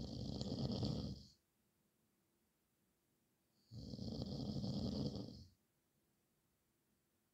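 A man snoring: one long snore at the start and another about four seconds in, with silence between them.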